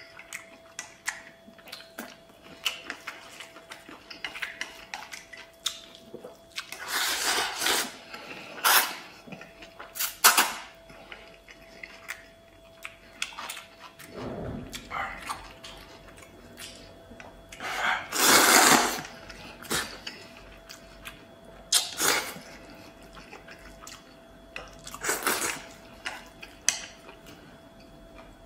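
Mukbang eating sounds: noodles slurped up in several long, loud pulls, the biggest about 7, 10 and 18 seconds in, with chewing and chopsticks clicking against a stainless steel bowl between them. A faint steady hum sits under everything.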